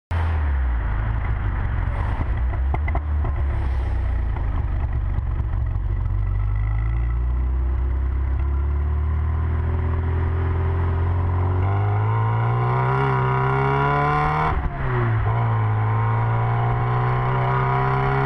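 Classic Mini's A-series engine pulling under load, its pitch climbing as the car accelerates. About three-quarters of the way through the pitch drops sharply at a gear change, then starts climbing again.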